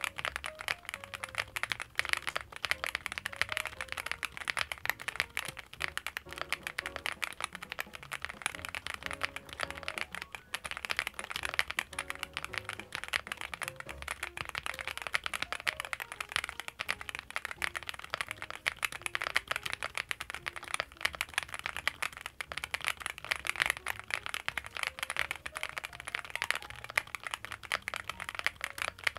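Continuous fast typing on a Cupid-65, a 65% gasket-mount aluminium-case custom mechanical keyboard. Many key clicks a second run on without a break.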